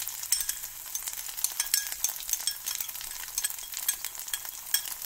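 Onions and ginger-garlic paste sizzling in hot oil in a kadai, a steady crackle with many small pops, while a steel spoon stirs and the sauce slurry is poured in.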